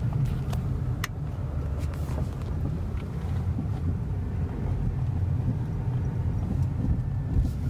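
Steady low rumble of a Pontiac G6's engine and tyres heard from inside its cabin as it rolls slowly, with a faint click or two.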